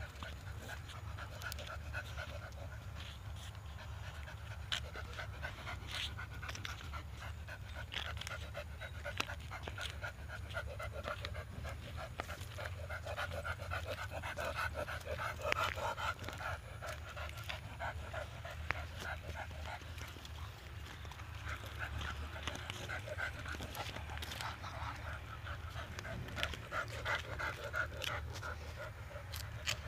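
Female pit bull-type (Staffordshire) dog panting fast and steadily, breath after breath without a break, while straining on her leash.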